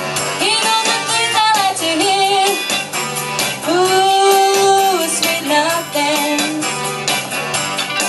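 Pop music with a woman singing over a backing track with a steady beat. She holds long, wavering notes, the longest near the middle.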